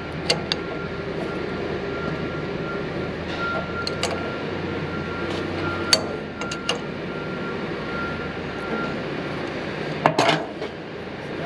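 Open-end wrench clinking against brass air fittings while tightening them on an air tailgate cylinder: a handful of scattered sharp metallic clicks, loudest near the end, over a steady low hum.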